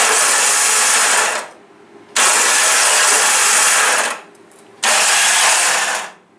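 Car starter motor spinning in three bursts of about a second and a half each, barely turning the engine over: the starter pinion slips and skips on the flywheel ring gear, which the mechanics blame on the starter or a damaged ring gear.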